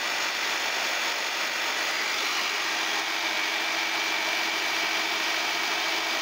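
Variable-speed electric drill running at full speed with a steady whine, spinning and shaking a paint bottle held in a quick-grip clamp in its chuck to mix paint whose metallic pigment has settled.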